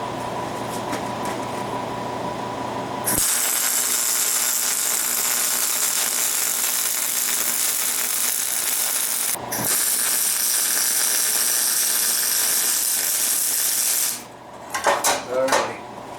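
Electric arc welder welding steel swage parts: a steady machine hum, then the arc starts with a sudden loud crackling hiss about three seconds in. The hiss pauses briefly in the middle, then runs again until shortly before the end, when a few clinks and knocks follow.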